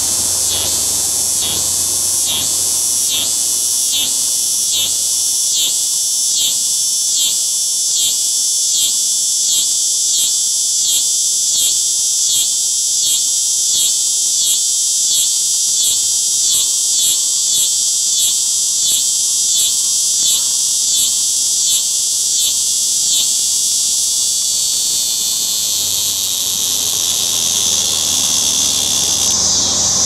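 Cicada singing at close range, its tymbals making a loud, high buzz that pulses in regular beats a little under twice a second, then smooths into a steady drone near the end.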